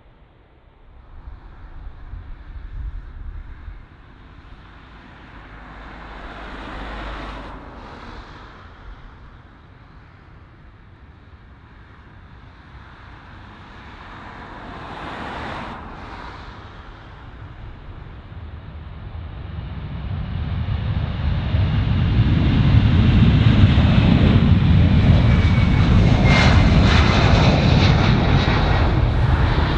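Boeing 767 twin jet engines at takeoff thrust. A low jet rumble swells and fades over the first half, then builds into a loud, steady roar with a high-pitched whine as the airliner lifts off and climbs past.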